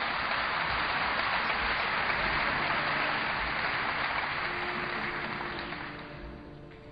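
Audience applauding: a dense wash of clapping that swells up at once and dies away near the end. Faint music comes in under it in the last couple of seconds.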